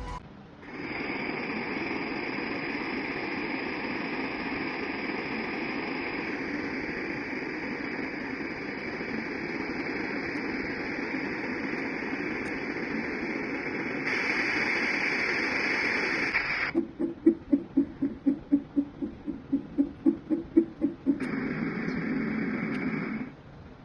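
Portable white noise sound machine stepping through its built-in sounds: a steady hiss that changes character twice, then a rhythmic pulsing sound at about four pulses a second, then another steady hiss that cuts off near the end.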